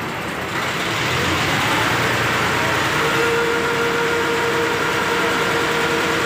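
Passenger ferry's engine running steadily, with a faint steady whine joining about halfway through.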